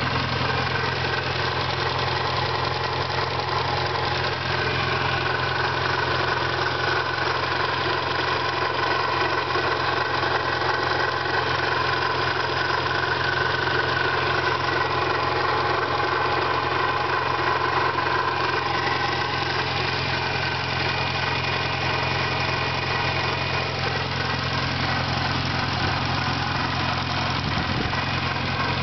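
1991 Eagle Talon TSI's turbocharged 4G63 four-cylinder engine idling steadily with a weird noise in it, which the owner suspects is a failing pulley, bad valves, or a stretched timing belt.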